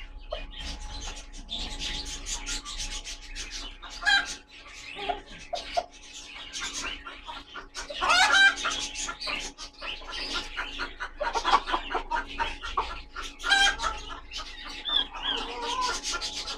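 Polish chickens, a rooster and two hens, clucking and calling, with louder calls about halfway through and again a few seconds later. Through it runs a patter of short scratchy clicks as they peck and scratch in wood shavings.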